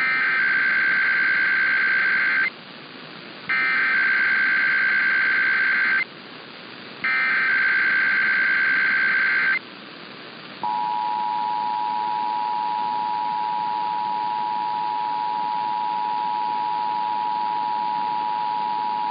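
Emergency Alert System header: three bursts of SAME data tones, a harsh warbling screech, each about two and a half seconds long with a second's gap between them. Then the steady two-tone EAS attention signal sounds for about eight and a half seconds, opening a required weekly test.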